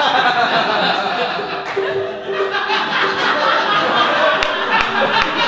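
Theatre audience laughing and chattering over live music from the stage, with a few light taps near the end.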